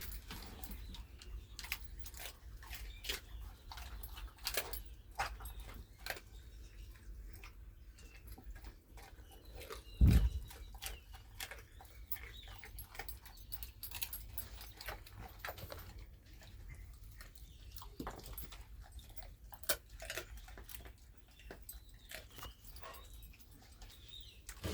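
A dog crunching and chewing raw chicken bones, a run of irregular sharp cracks and crackles. A single heavy thump about ten seconds in is the loudest sound.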